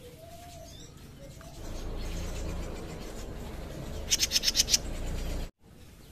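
A caged jenggot mini songbird giving one rapid, high chattering call of about eight quick notes, under a second long, near the end, over a low rumble.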